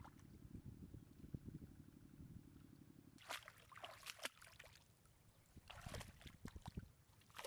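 Faint low wind rumble, then from about three seconds in, scattered light crackles and rustles, as of grass and shallow water being disturbed.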